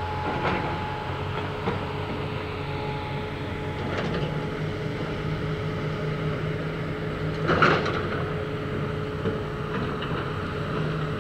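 Komatsu PC350 hydraulic excavator's diesel engine running steadily as it works the brick rubble, with a few scattered clanks and knocks of debris. The loudest is a sharp crash about three-quarters of the way through.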